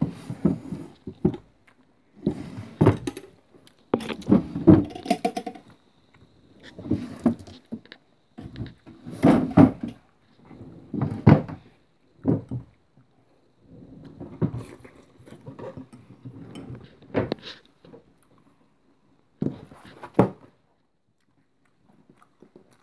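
A run of irregular knocks, thumps and rattles from objects being handled and moved about, with a few quiet gaps near the end.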